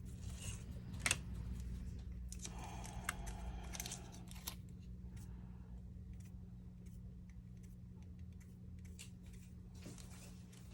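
Small clicks and scrapes of a precision screwdriver and phone parts as the last screws of a Samsung A52's frame are driven in, busiest in the first few seconds, over a steady low hum.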